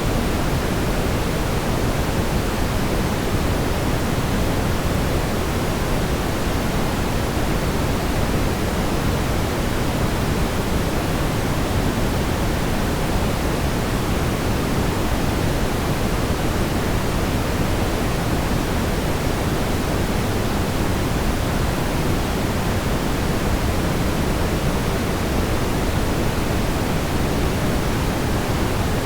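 Continuous smoothed brown noise: a deep, even rushing hiss, heaviest in the low end and thinning toward the top, holding steady without any change.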